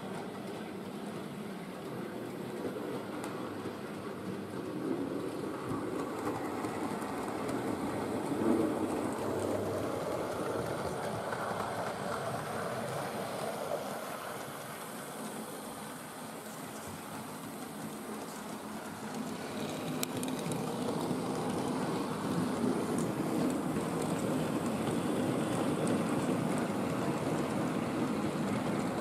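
An OO-gauge model steam locomotive and its wagons running on sectional track: the motor whirs and the wheels rattle over the rails. It fades a little midway and grows louder again as the train comes close near the end.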